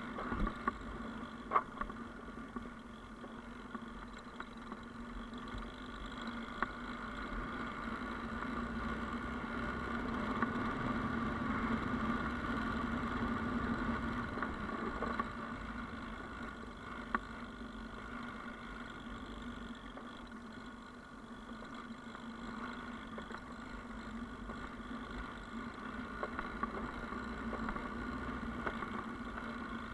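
Yamaha Ténéré motorcycle engine running steadily on a trail ride, its note swelling louder for a few seconds in the middle and again near the end, with a few sharp clicks over it.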